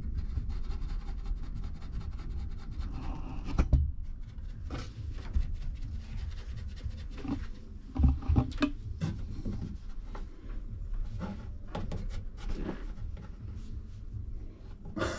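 A cat moving about on wooden wall shelves: soft rubbing and scattered knocks, with sharper thumps about 4 and 8 seconds in.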